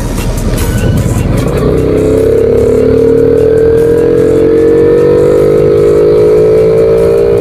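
Honda Wave 110i's single-cylinder engine pulling under acceleration while riding, with the loud intake noise of an air box whose filter element has been removed and holes drilled in it. Rough at first, then from about two seconds in a steady engine tone that rises slowly in pitch as the bike gathers speed.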